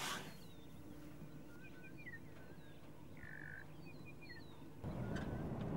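Wild birds calling in the bush: scattered short chirps and a few longer whistled notes, over a faint steady hum. About five seconds in, a louder low rumbling noise comes in.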